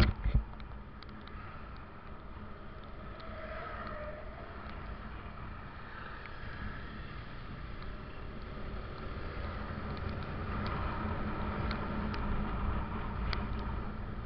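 Kawasaki ZX-25R motorcycle riding at a gentle pace on a wet road, its engine running steadily under wind noise on the helmet microphone. A couple of knocks at the very start.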